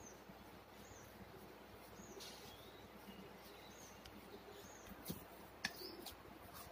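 Faint bird chirps: short, high calls about once a second. A couple of light clicks come near the end.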